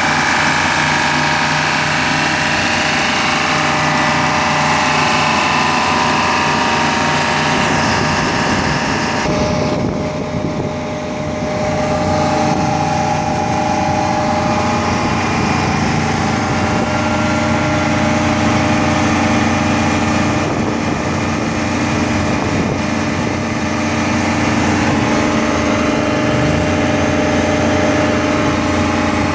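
Detroit Diesel engine of an Ingersoll Rand MW-175 road milling machine running steadily, briefly quieter about ten seconds in.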